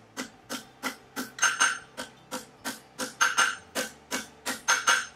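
Hand hammer blows shaping an aluminum horseshoe over the horn of an anvil, about three to four strikes a second, some in quick pairs, with a short ringing tone from the anvil after many of them.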